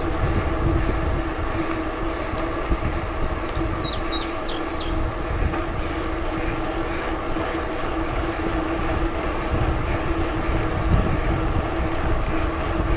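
Steady noise of a bicycle being ridden: wind rumbling over a phone microphone along with tyre noise and a steady low hum. A brief run of high chirps comes about three seconds in.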